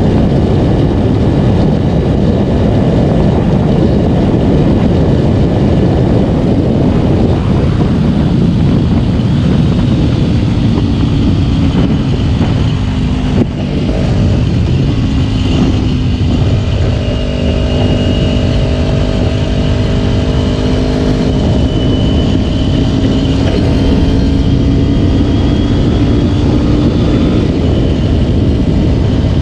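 Kawasaki Ninja 250 motorcycle on the move, its engine running at a fairly steady pitch under heavy wind rush on the microphone. Loudness dips briefly about halfway through, after which the engine note holds steady and stands out more clearly over the wind.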